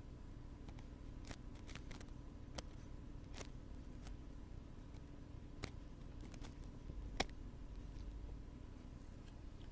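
Faint, irregular clicks and light scratches from ASMR ear-cleaning tools worked close to the microphone, over a steady low hum.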